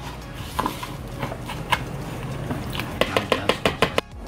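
Metal spoon stirring a crumbly breadcrumb-and-cheese mixture in a bowl: scattered clinks and scrapes, then a quick run of about seven clicks against the bowl about three seconds in.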